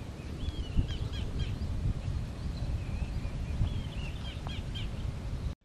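Wind buffeting the microphone in uneven gusts, with a bird calling in two short runs of quick chirps.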